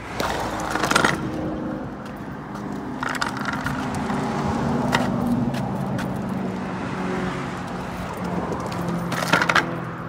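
Wheeled plastic trash can and its broken-off wheel clattering and knocking on a concrete sidewalk, with a few sharp knocks over a steady low drone.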